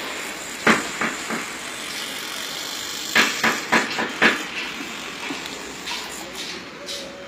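Construction-site work noise: sharp metallic knocks and clanks, a few single ones in the first second or so and a quick run of about five around three seconds in, over a steady background rush of site noise.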